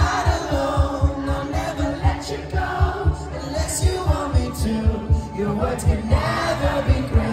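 Indie rock band playing live on electric guitars, keyboards and drums, with singing over a steady, driving kick-drum beat.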